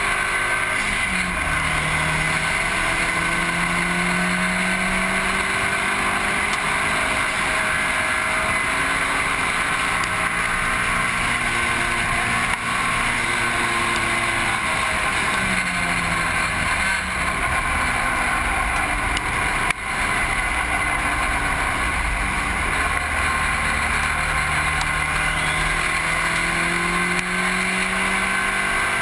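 Mitsubishi Lancer Evolution VIII's turbocharged four-cylinder running hard at track speed, its note climbing and dropping several times with throttle and gear changes, under heavy wind and road noise at the low bumper-mounted camera.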